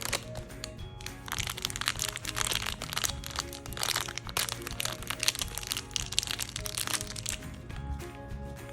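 Toy packaging crackling and crinkling as it is opened and handled, a dense run of sharp clicks, over steady background music.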